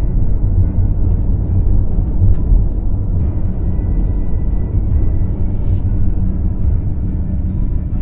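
Steady low rumble of a car's engine and tyres while driving, heard from inside the cabin.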